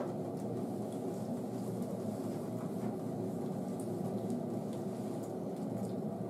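Steady low mechanical hum, like a running fan or appliance motor, with faint soft squishes of hands working conditioner through a wet dog's coat.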